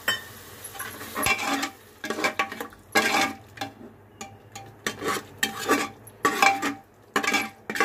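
Metal ladle scraping and stirring a thick masala paste in an aluminium pressure cooker, metal rubbing on metal in repeated strokes. The masala is being fried down after water was added.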